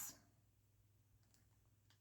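Near silence: room tone, with two faint clicks in the second half.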